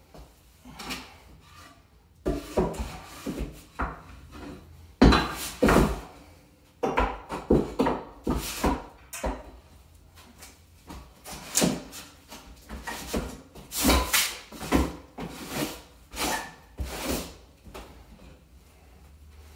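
Wooden boards and blocks knocking and scraping against each other and the floor as they are shifted and wedged under a cast iron radiator. The knocks come irregularly, the loudest about five seconds in and again near fourteen seconds.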